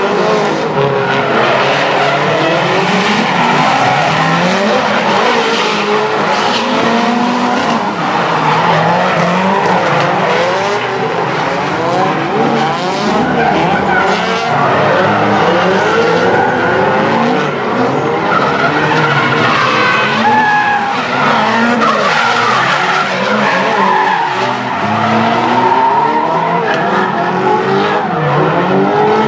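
Several Nissan S-chassis drift cars sliding together in a tandem train, their engines revving up and down over one another while their tyres squeal and skid throughout.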